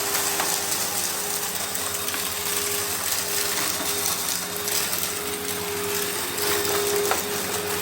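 Eureka PowerSpeed vacuum cleaner running steadily over carpet: a constant motor drone with a steady hum in it.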